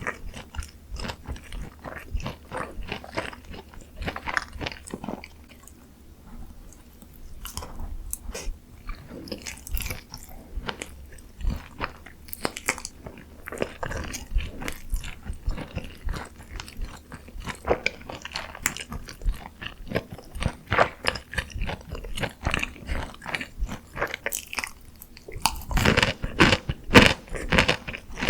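Close-miked biting and chewing of crispy dakgangjeong, Korean fried chicken in a honey mustard cream glaze: a run of repeated crunches, easing off briefly about six seconds in and coming denser and louder near the end.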